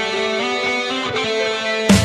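Background rock music: sustained guitar chords without singing, with a loud hit just before the end as drums and the full band come in.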